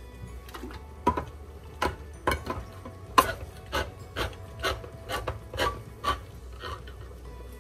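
Can opener cutting around the lid of a metal can, a grinding rasp broken by sharp clicks about twice a second.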